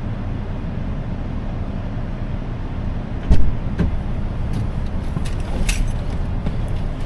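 Steady low rumble of a car, with a sharp knock about three seconds in, a second knock half a second later, then a few lighter clicks.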